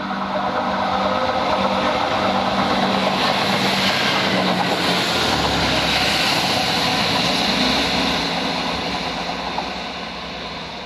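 Class 165 diesel multiple unit passing at speed. A steady diesel engine drone and wheel-on-rail rush build as it approaches and are loudest as it goes by. The sound then fades as it moves away.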